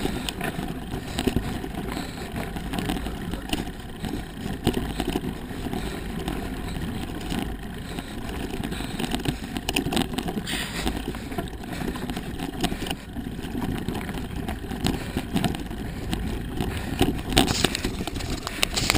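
Mountain bike on a rough dirt trail, a steady rattle and rumble with many small irregular clicks.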